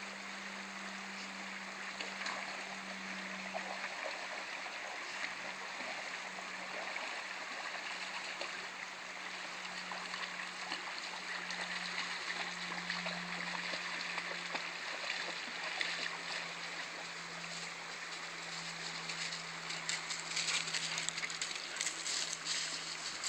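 Shallow creek water running steadily over the streambed, with a low steady hum underneath. In the last few seconds, crackling footsteps on dry leaves join in.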